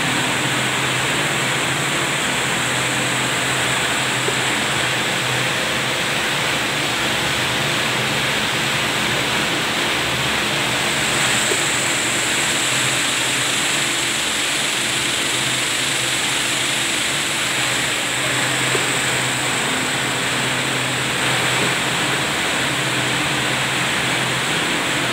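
Vibratory bowl finishing machine running: a steady hum with a dense hiss over it, holding level throughout.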